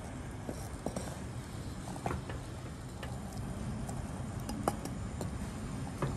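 Scattered light taps and clicks of a wooden spoon on terracotta as powdered rice is tipped into boiling jaggery water in a clay pot and stirred, over a steady low rush.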